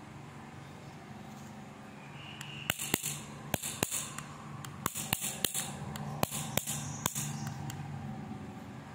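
Handling noise from a plastic stun gun turned over in a gloved hand. From about two and a half seconds in there are irregular sharp plastic clicks, about a dozen over five seconds, mixed with short rustles of the glove on the casing.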